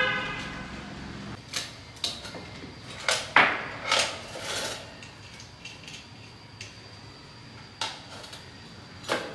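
Light handling clatter of small tools and test leads at a repair bench: a brief squeaky rub at the start, then a scatter of separate clicks and knocks, about eight in all, the loudest a little past three seconds in.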